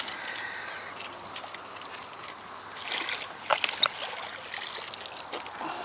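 Water splashing and sloshing from a hooked carp being played in the margin, with a few sharp clicks about three and a half seconds in.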